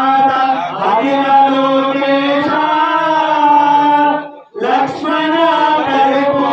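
A man's voice chanting a devotional hymn in long held notes, with a short break about four and a half seconds in.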